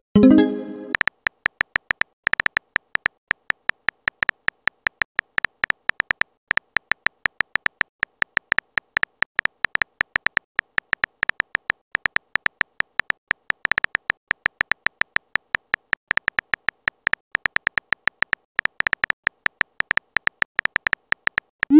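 Text-message app keyboard sounds: a rapid, irregular stream of short, high beeping clicks, one for each typed character, several a second. In the first second a short pitched chime marks a message being sent, and a quick rising swoop right at the end marks the next one going out.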